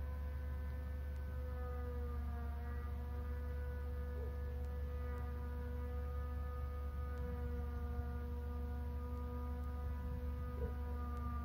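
Steady low electrical hum on a live webcam's audio feed, with a fainter drawn-out tone and its overtones wavering slightly in pitch above it.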